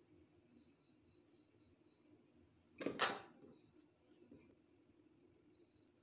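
Faint, steady, high-pitched chirring of crickets, with one brief sharp knock about three seconds in.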